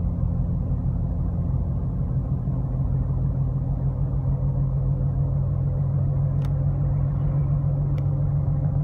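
Steady low drone of a car's engine and road noise heard from inside the cabin while cruising at about 40 mph, engine near 2,000 rpm in Drive. The low hum grows a little stronger about two seconds in, and two faint ticks come in the second half.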